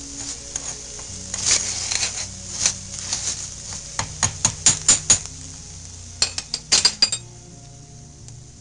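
Metal spoon stirring and scraping rice toasting in oil in a metal saucepan, the spoon clinking against the pot, with a quick run of sharp clinks about halfway through and another cluster shortly after. The rice is at the browning stage of Mexican rice.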